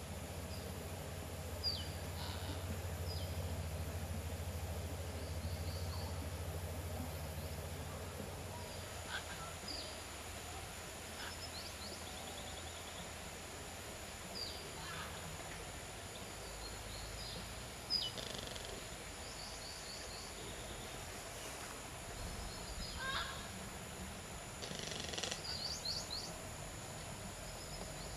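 Outdoor birdsong: scattered short, high, falling chirps from small birds, with a brief burst of rapid high chattering near the end. A steady low hum underneath fades out about eight seconds in.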